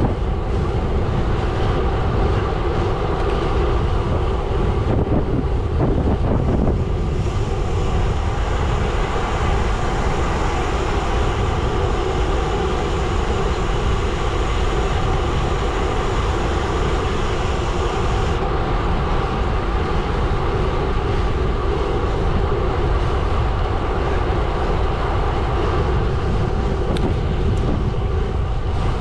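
Gravel bike tyres rolling steadily over a gravel road, making a constant rumble and crunch of the bike under way.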